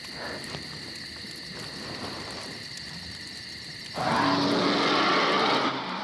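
Steady cricket chirring, then about four seconds in a loud bear roar, played from a small portable speaker, lasting about two seconds.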